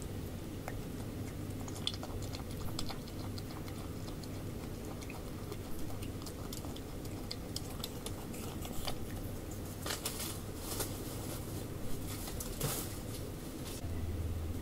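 Brushtail possums chewing and crunching apple slices: irregular crunches and clicks, thickest a little after the middle, over a steady low hum.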